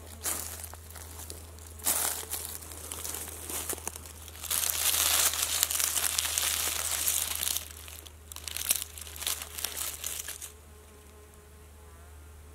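Dry leaf litter crinkling and crackling as it is stepped on and then handled: hands rustle through the dry leaves and twigs around a mushroom, loudest for about three seconds near the middle, with scattered crackles after. It stops about two seconds before the end.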